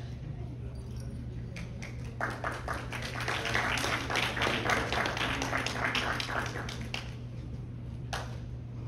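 A small audience applauding, the clapping swelling from about two seconds in and dying away after about five seconds, over a steady low hum.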